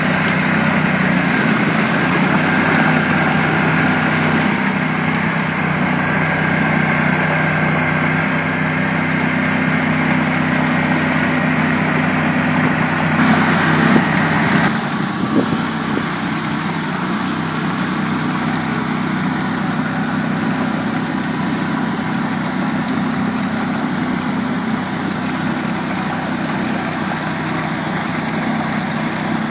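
Argo 8x8 amphibious ATV's engine running steadily. About halfway through, after a couple of knocks, the engine note drops and it runs quieter.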